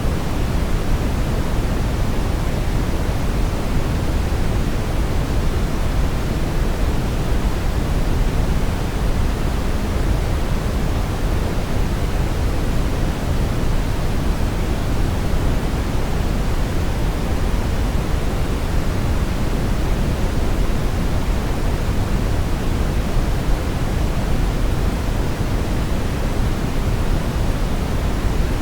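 Brown noise: a steady, even rushing hiss weighted to the low end, with no changes.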